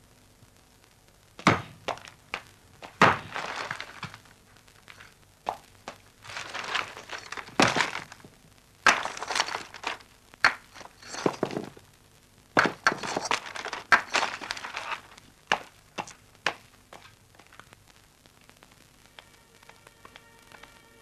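An irregular series of sharp thuds and cracks, about a dozen strokes, several of them trailed by a short scraping or rushing noise; the strikes begin about a second and a half in and stop a few seconds before the end.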